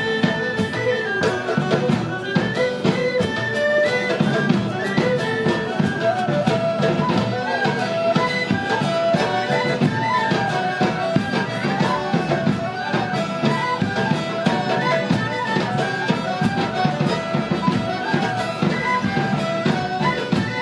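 A live traditional band playing an instrumental folk dance tune: a melody over a steady drum beat.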